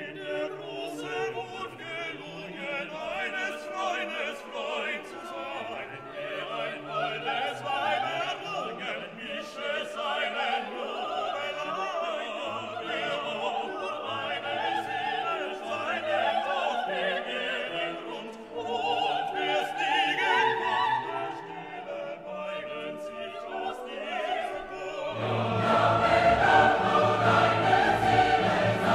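Orchestral classical music with operatic singing, swelling louder and fuller near the end.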